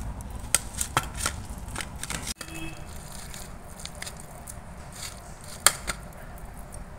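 Hand mashing and mixing soft boiled pumpkin with flour and spices on a stainless steel plate: low squishing and scraping, with scattered sharp clicks of the hand and bangles knocking against the steel.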